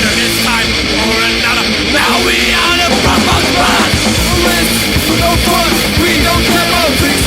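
Hardcore punk music played loud: a dense wall of band sound with shouted vocals coming in about two seconds in.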